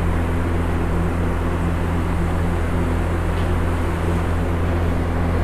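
Steady low electrical hum with an even hiss, unchanging throughout.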